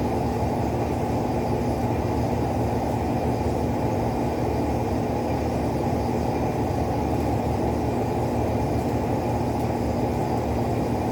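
Steady low mechanical hum, even and unchanging, with a faint steady tone in it.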